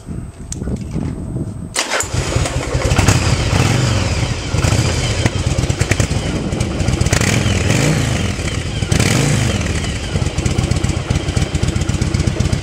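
Yamaha Virago 1100's air-cooled V-twin cranked on the electric starter, catching about two seconds in and then running loud through stock mufflers whose baffles have been drilled out, with the revs rising and falling a couple of times.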